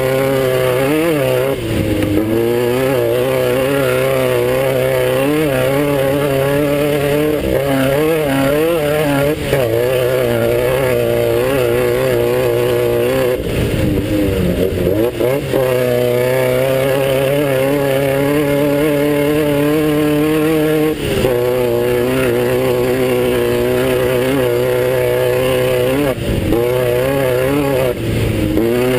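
Class 9 off-road race car's engine running hard through a race lap, its pitch wavering up and down with the throttle and dropping briefly several times.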